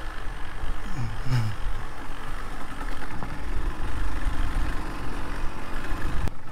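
Small motorcycle engine running steadily on the move, a low rumble with road and wind noise.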